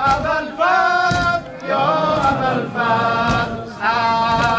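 A noha, a Shia mourning lament, sung in long held lines by a male reciter, with the congregation chanting along.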